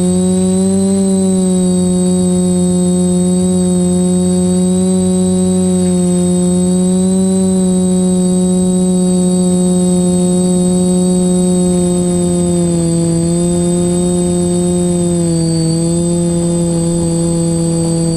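TBS Discovery quadcopter's electric motors and propellers humming loudly and steadily, heard from the GoPro mounted on the aircraft, the pitch wavering slightly up and down. A thin high whine sits above the hum.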